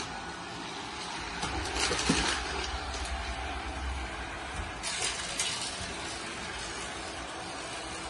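Laresar robot vacuum and mop combo running, with a steady whir from its suction fan and brushes and a few brief clatters about two seconds in and again around five seconds in.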